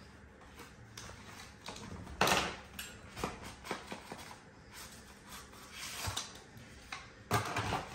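Handling noise from unpacking a selfie stick: its long cardboard box and plastic wrap rustling and scraping, with scattered small clicks. Two louder scrapes come about two seconds in and near the end.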